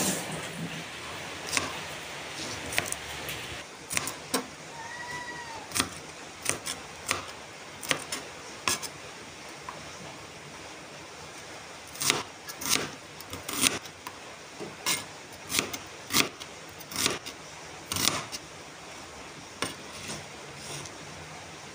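Knife chopping garlic and onion on a plastic cutting board: sharp, irregular knocks, scattered at first, then coming quickly for most of the second half.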